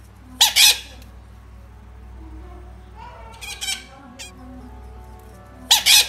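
Green parakeet squawking in three short, harsh bursts about two to three seconds apart, the first a double call, over quiet background music.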